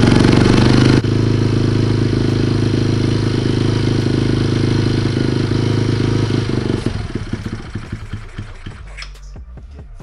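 Kawasaki KLX110 pit bike's single-cylinder four-stroke engine running steadily, then stumbling and dying away about seven seconds in, while brake cleaner is sprayed around the intake to find a suspected intake air leak.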